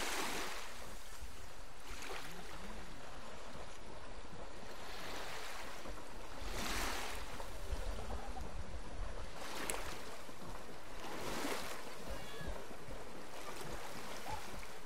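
Sea of Okhotsk surf breaking on the shore, waves washing in every few seconds in swelling rushes over a steady low rumble.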